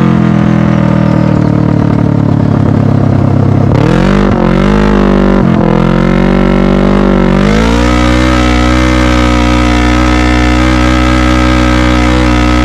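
Kawasaki KRX 1000's parallel-twin engine running loud through an RPM SXS stainless slip-on sport muffler as the side-by-side drives. The engine note dips and climbs a couple of times around four to seven seconds in, then holds a steady higher pitch.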